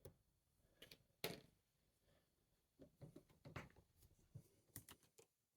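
Faint clicks and light knocks of a picked-open van lock padlock and its picking tools being handled, with one sharper knock about a second in and a run of small clicks near the middle and end.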